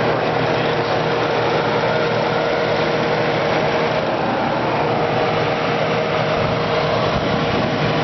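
Kenmore Model 5925 25-pint dehumidifier running: a steady rush of air from its fan with a low, even hum from the compressor.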